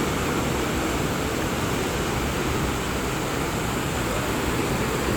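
Steady rushing noise of wind buffeting the microphone, mixed with surf washing onto the beach.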